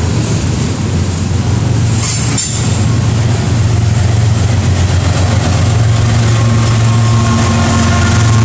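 Steady low rumble and drone of a vehicle in motion, with a brief sharp click about two seconds in.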